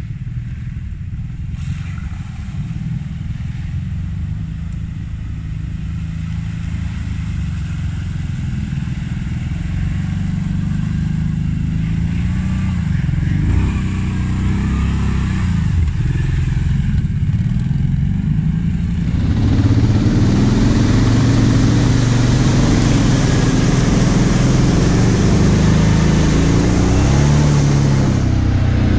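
Quad bike (ATV) engines running and revving through mud, the engine pitch rising and falling. About two-thirds of the way through the sound turns louder, with a steady hiss over the engine, as heard from on board the quad.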